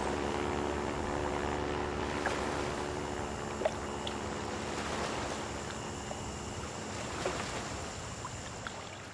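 Single-engine floatplane's propeller engine droning steadily as it flies over, with wind and water noise; the drone slowly fades and cuts away at the end.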